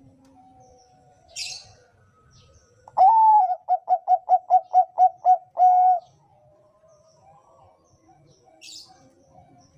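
Zebra dove (perkutut, Bangkok song line) cooing one loud phrase a third of the way in: a long opening note, a quick run of about ten short notes, and a long closing note. Fainter cooing of other doves goes on behind, with two brief high chirps.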